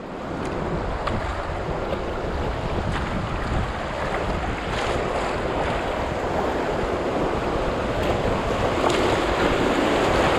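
Steady rushing of moving river water around a kayak, mixed with wind buffeting the microphone.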